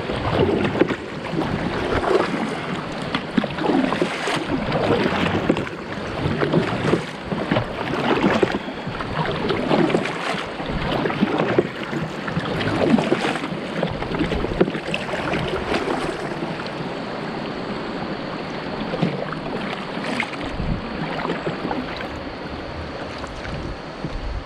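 Kayak paddle strokes dipping and splashing in river water, with water washing along the hull, a stroke about every second or so. The strokes ease off near the end as the kayak glides with the paddle at rest.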